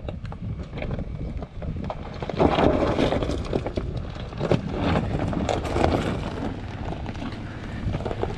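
Chevrolet Colorado ZR2 pickup crawling slowly over a loose rock trail, its tyres crunching and knocking on the stones in an uneven patter. It gets louder about two seconds in as the truck comes closer.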